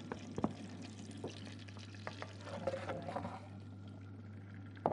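Hot cooking fat sizzling in a frying pan with scattered pops, heating until very hot before the chicken goes in. There is a sharp knock just before the end.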